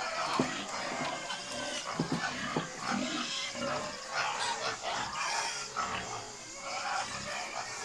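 Pigs grunting in short, irregular calls.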